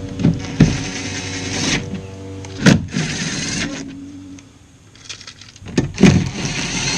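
Cordless drill running in short bursts, driving fat screws into a car door where rivets were drilled out, with sharp clicks and knocks as the screws seat.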